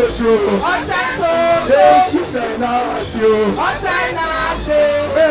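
Several voices singing loudly together, with held notes and sliding pitches, and some calling out.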